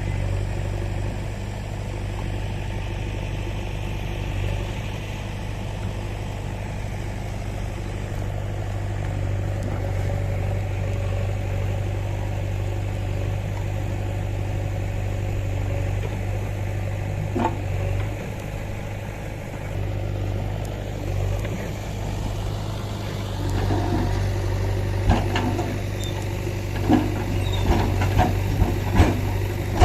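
Diesel engine of heavy machinery running steadily at low revs. In the last few seconds come a run of sharp knocks.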